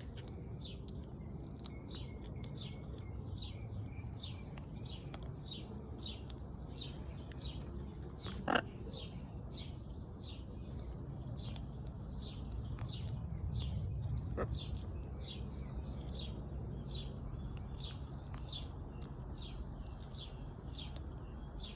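Outdoor ambience: a short high chirp repeated steadily about one and a half times a second, over a steady high-pitched whine and a low rumble. About eight and a half seconds in comes one short sharp sound, with a fainter one about six seconds later.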